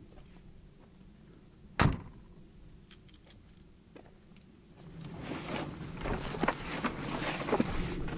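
Backpack being put on: rustling fabric and jangling straps and buckles for the last three seconds or so, after a single sharp knock about two seconds in.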